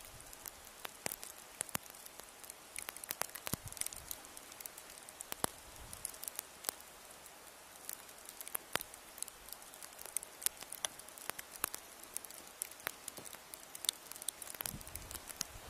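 Irregular sharp crackling clicks, several a second at uneven intervals, over a faint steady hiss.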